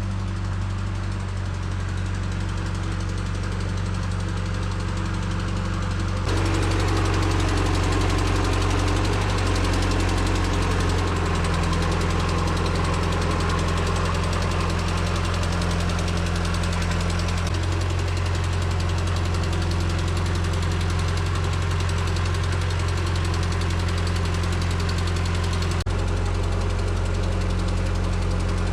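An engine running steadily with a low, even hum. About six seconds in it turns abruptly louder and noisier and stays that way.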